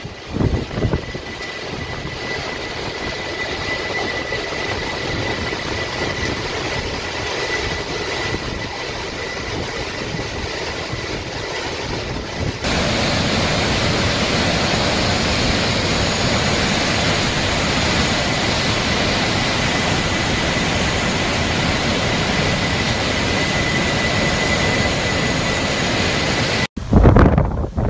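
Hurricane wind blowing hard and steadily over a flooded street, a constant rushing roar with wind buffeting the microphone; it gets louder about halfway through. A faint steady high whistle runs under it.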